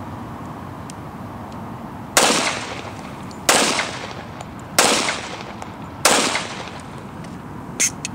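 Four suppressed .45 ACP pistol shots from an FNP-45 Tactical fitted with a Shepherd 45 suppressor, evenly spaced about 1.3 seconds apart, each a muffled report with a short fading tail. A sharp click follows near the end.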